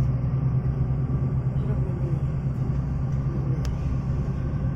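Vehicle engine running with a steady low hum and rumble, heard from inside the vehicle.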